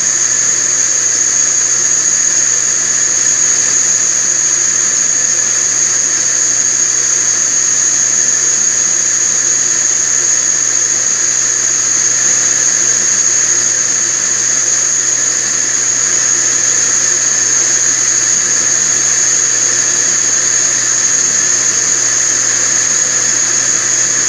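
Myford 254S lathe running, its tool facing a large aluminium workpiece under power cross-feed, with a steady high-pitched whine and no change throughout.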